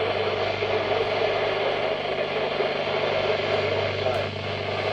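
Steady radio static with a low electrical hum underneath, unbroken throughout.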